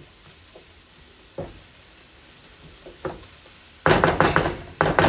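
Collard greens and onions sizzling gently in a nonstick skillet. About four seconds in, a sudden loud clatter of rapid knocks breaks in.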